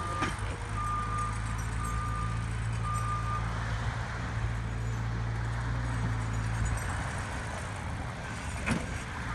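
Compact track loader's diesel engine running steadily while it backs up. Its reverse alarm beeps about once a second, stopping about three and a half seconds in.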